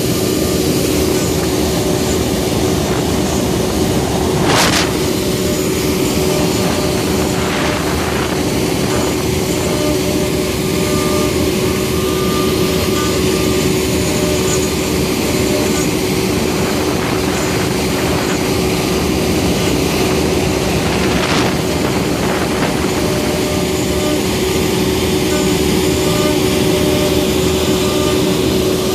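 CNC router spindle running with a steady whine while its small end mill cuts a 3D relief into a wooden block, the rasp of the cut mixed in. Two brief sharp crackles stand out, about five seconds in and about twenty-one seconds in.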